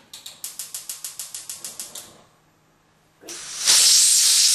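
A quick, even run of clicks, about nine a second, for two seconds. Then, after a short pause, a pressure cooker whistles: steam hisses loudly and steadily past the lifted weight. This first whistle is the sign that the cooker has come up to pressure.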